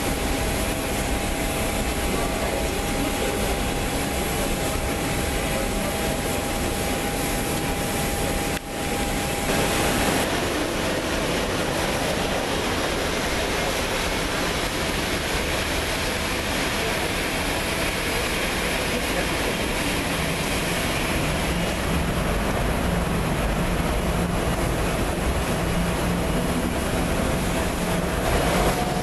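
Jet airliners on a rain-soaked runway, heard through terminal glass: a steady loud rushing noise with a thin steady whine over the first ten seconds. The sound breaks off briefly about nine seconds in. Low steady hums join in during the last third.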